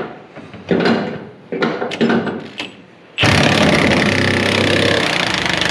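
Cordless impact wrench hammering on a rusted truck bed-mounting bolt, starting suddenly about three seconds in and running steadily to the end, as it tries to break the seized bolt loose. A few short handling knocks come before it.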